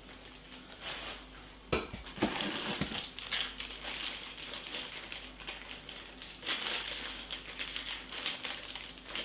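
Packaging crinkling and rustling as monitor cables are handled and unwrapped. There is a sharp knock a little under two seconds in, and the crinkling grows busier about six and a half seconds in.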